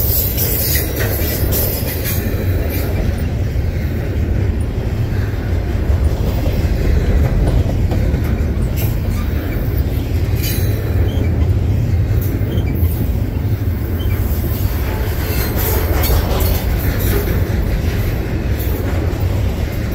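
Double-stack intermodal well cars of a freight train rolling past: a loud, steady rumble of steel wheels on rail, with scattered sharp clicks from the running gear.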